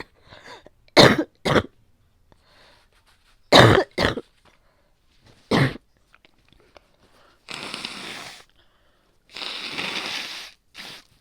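Wet, phlegmy coughing: five coughs, in two pairs and then a single, followed by two longer breathy sounds near the end.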